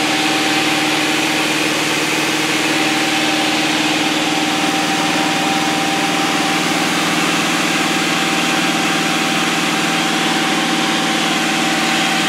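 Van's RV-6's piston engine and propeller droning steadily at cruise power, heard from inside the cockpit, with an even hiss over the engine tones.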